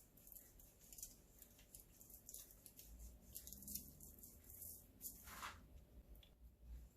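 Faint, soft rustling and light ticks of powdered sugar being sprinkled over homemade cough drops, with one slightly longer swish about five seconds in.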